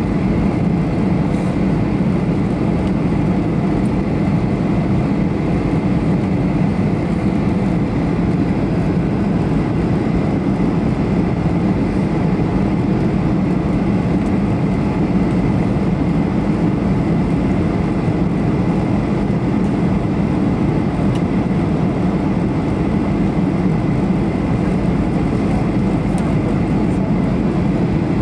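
Steady cabin noise of a Boeing 737-800 in flight: a constant deep rush of engine and airflow, with a faint steady high whine above it.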